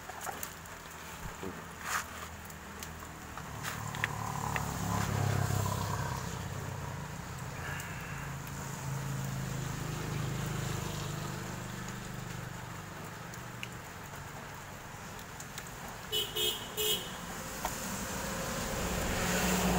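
A passing motor vehicle's low rumble swells and fades, then rises again at the close, with a few short beeps about three seconds before the end. Light clicks and scrapes from a blade cutting tread grooves into a rubber tyre sound in the first seconds.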